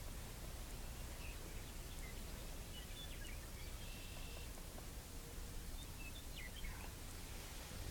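Quiet outdoor ambience: a steady low rumble with scattered faint, high bird chirps, including one short held note about halfway through.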